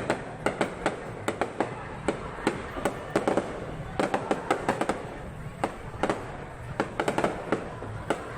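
Fireworks display: a rapid, irregular run of sharp bangs and crackles, several a second, going on without a break.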